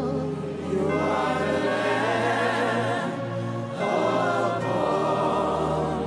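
Gospel worship music: many voices singing together in sustained phrases over steady bass notes that shift to a new chord a few times.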